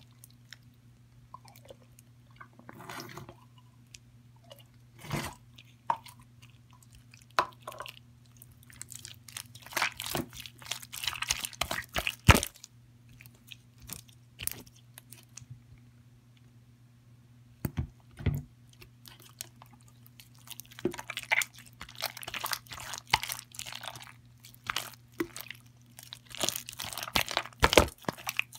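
Hands squishing, pressing and stretching green slime, giving irregular wet clicks, pops and crackles that come in clusters with quieter gaps between them. A steady low hum runs underneath.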